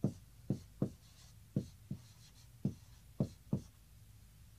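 Dry-erase marker writing on a whiteboard: about eight short, sharp strokes of the tip against the board, irregularly spaced, stopping about three and a half seconds in.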